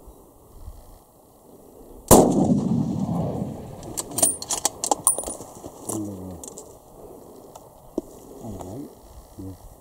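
A single hunting rifle shot about two seconds in: one sharp, loud crack whose report rolls on for about a second and a half. A few quick sharp clicks follow a couple of seconds later.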